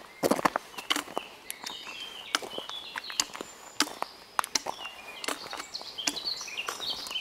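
Footsteps of someone walking along a path, an irregular run of crunching steps, with birds singing short repeated chirping phrases.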